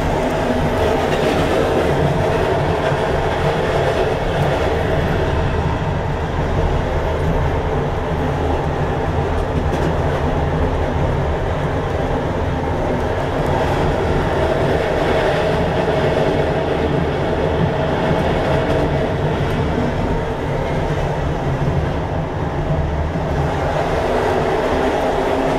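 Interior of a Czech second-class passenger coach on a moving train: a steady rumble of wheels on rails with a continuous hum.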